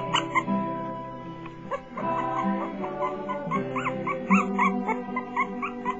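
Background music with steady held tones, over which young puppies squeak and whimper in many short, high cries, most of them in the second half.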